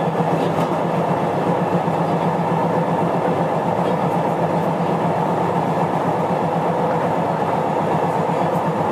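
Sotetsu old 7000 series electric train (motor car MoHa 7108, Hitachi GTO-VVVF inverter) running between stations at a steady pace, heard from inside the car: an even running hum and rumble with no rise or fall in pitch.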